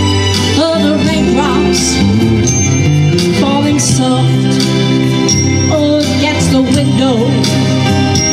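Live music: a slow country ballad played by a guitar-and-backing-track duo, a wavering melody line over sustained chords with bright accents every couple of seconds.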